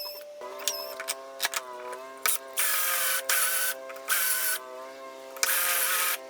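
Rikon wood lathe running with a steady whine while a turning tool cuts a spinning cocobolo pen blank. The cuts come in repeated passes, each a loud scraping hiss lasting up to about a second.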